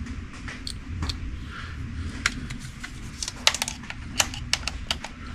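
Light metallic clicks and taps at an irregular pace, bunching together in the second half, as small hardware such as a thin washer is handled and fitted. A steady low hum runs underneath.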